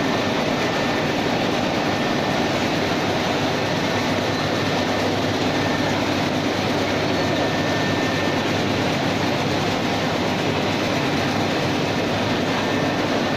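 Large-format digital printing machine running, a steady mechanical whirring noise with no breaks.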